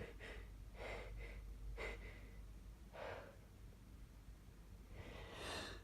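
A person's faint, short breaths and sniffs as an allergy sneeze builds, with a longer in-breath near the end.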